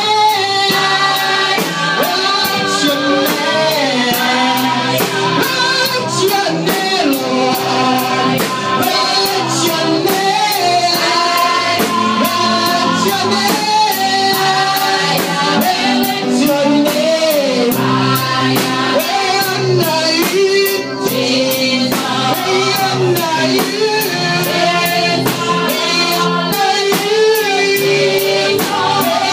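Gospel praise singing with a band: voices over guitar and a steady percussion beat.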